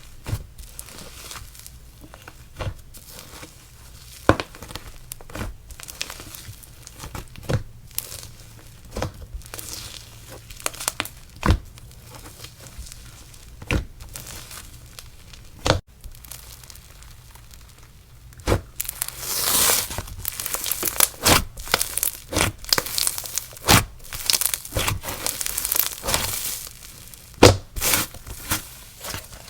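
Clay slime being squeezed and stretched by hand, making scattered sticky pops and clicks. About two-thirds of the way in these thicken into dense crackling.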